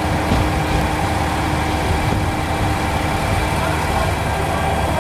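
JR Kyushu 815 series electric train pulling into the platform: a steady rumble of wheels and motors with a few steady tones over it, one of which drops out about three and a half seconds in.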